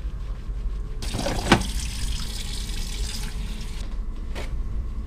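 A wall-mounted hand-sanitiser dispenser clacks once as it is pressed. Around it is about three seconds of steady rushing hiss that starts and stops abruptly. A low steady hum runs underneath.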